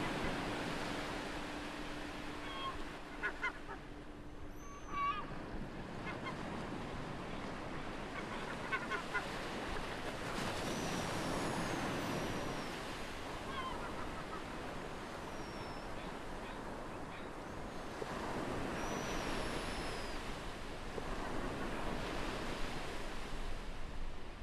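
Ocean waves washing up on a beach in slow swells, with seagulls calling several times in short falling cries and bursts of chatter. A low, steady ringing tone, the tail of a meditation bell, fades out about five seconds in.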